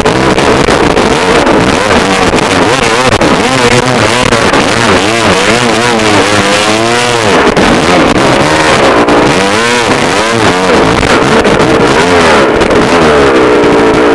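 Dirt bike engine close to the camera, revving up and down over and over as the throttle is worked on rocky ground.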